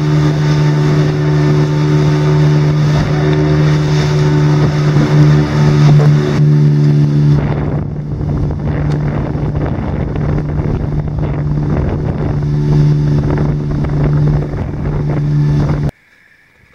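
An engine running steadily at a constant speed, with wind rushing over the microphone. It cuts off suddenly near the end.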